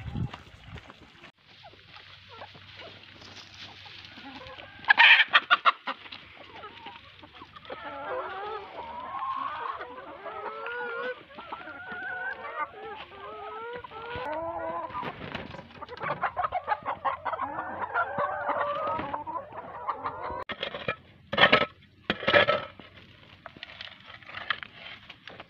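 A flock of hens clucking and calling as they peck at scattered greens, with a few short, louder sounds about five seconds in and twice near the end.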